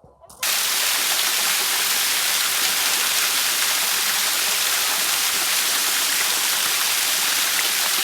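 Waterfall: a steady, even rush of falling water that cuts in abruptly about half a second in.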